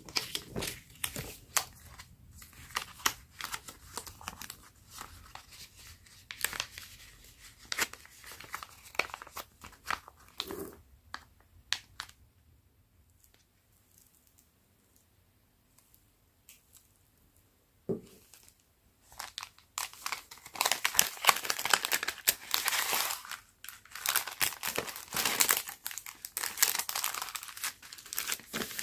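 Paper cutouts shuffled and tapped by hand in scattered rustles and clicks, then a quiet stretch broken by a single knock. For the last third, a clear plastic flat bag of cut washi tape pieces is handled, crinkling loudly and continuously.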